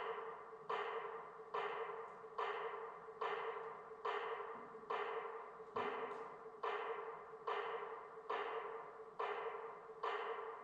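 Background music: one struck, ringing percussion note repeated steadily a little more than once a second, each strike fading out before the next.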